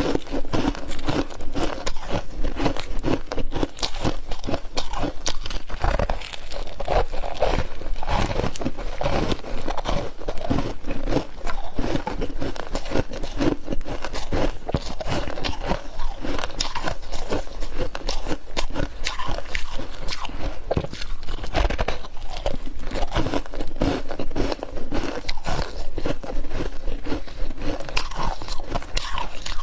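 Close-up crunching and chewing of freezer frost in the mouth, a dense run of crisp crackling bites that goes on without a break.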